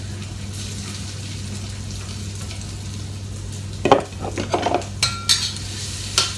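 Food sizzling in hot oil in a wok. From about four seconds in, a spatula scrapes and clatters against the wok in quick strokes as the food is stir-fried.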